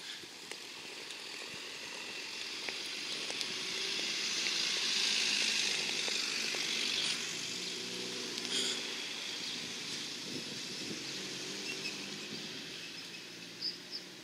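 Outdoor street ambience: a steady hiss that grows to its loudest about a third of the way in and then eases off, over a low hum.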